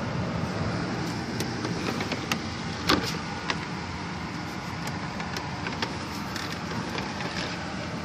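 A GE ADEL50LYL1 50-pint dehumidifier running steadily, its fan and compressor giving a constant low hum. A few sharp clicks and knocks of handling cut through, the loudest about three seconds in.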